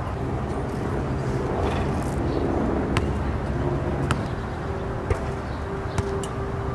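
Steady low traffic noise outdoors, with a basketball bouncing on an asphalt court: single sharp knocks about once a second in the latter half.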